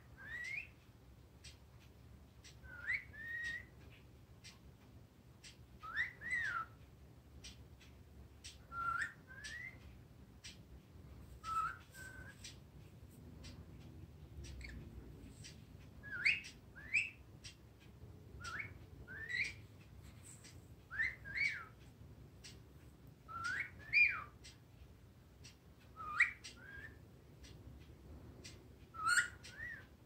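Blue-headed pionus parrot whistling short phrases of one or two quick notes that sweep up or rise and fall, repeated about every two to three seconds, around eleven times.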